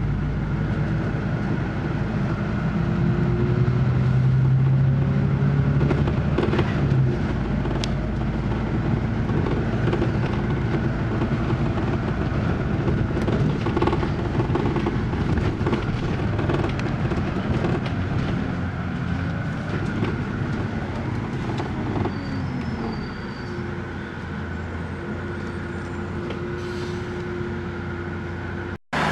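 Bus engine and body rattles heard from on board while driving through town: a steady drone whose pitch rises and falls with the gear changes, with scattered knocks and rattles. It settles quieter in the last few seconds as the bus slows and waits at red lights, then cuts off suddenly at the very end.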